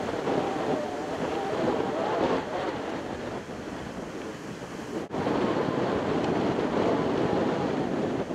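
Wind buffeting the microphone over the distant rumble of a diesel-hauled freight train, a train of empty wheat wagons behind 81 class locomotives. The sound briefly cuts out about five seconds in.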